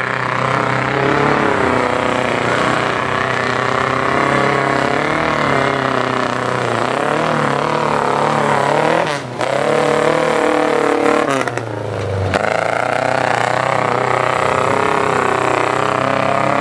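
A stripped-down tuff truck's engine revving up and down as it runs a dirt obstacle course, with two brief drops in revs about nine and twelve seconds in.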